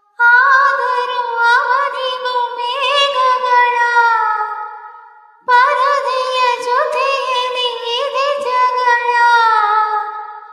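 A woman singing two long, high phrases. The second starts about five and a half seconds in, and each dies away at its end.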